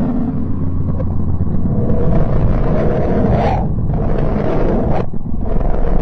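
Low rumbling, droning noise presented as the sound of the planet Mercury, space data rendered as audio. A low steady hum underlies the first second and a half, then the noise comes in swelling surges that break off abruptly twice.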